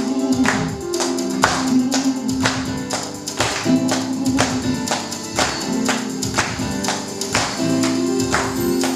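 Live gospel praise band playing an upbeat instrumental intro: a steady percussion beat, about two hits a second, over held chords.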